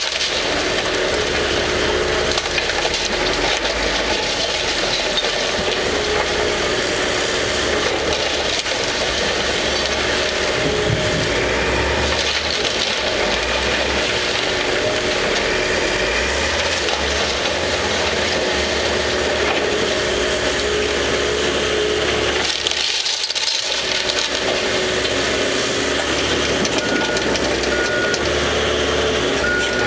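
Caterpillar 312C hydraulic excavator running steadily as its bucket tears down a wooden building, with continuous crunching and cracking of splintering wood and debris over the engine.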